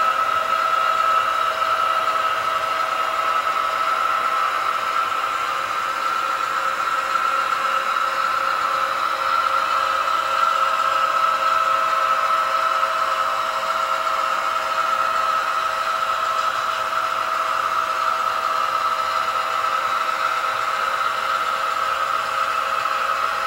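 Model train running along the layout track: a steady whir with a constant high whine.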